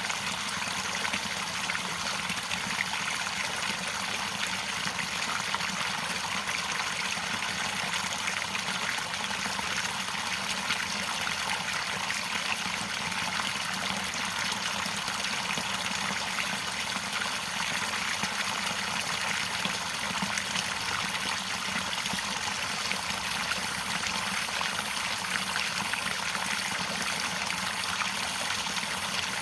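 Running water from a stream, trickling and splashing steadily.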